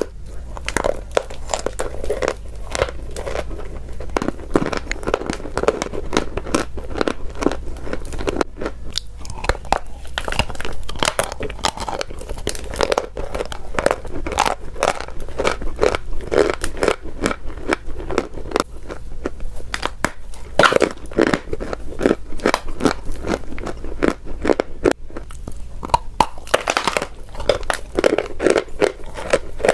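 Chalk being crunched up close, a rapid, irregular run of crisp cracks and crumbly crunches, over a steady low hum.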